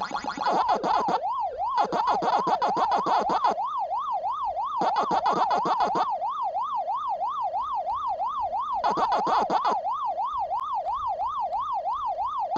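Pac-Man arcade game sounds: the ghosts' siren tone sweeping up and down about three times a second throughout, with Pac-Man's rapid 'waka-waka' chomping coming and going in several short spells.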